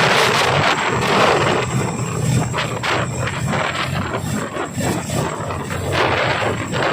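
Chinook tandem-rotor helicopter running close by, a loud rushing rotor and engine noise with rotor wash buffeting the microphone. It eases somewhat in the middle and swells again near the end.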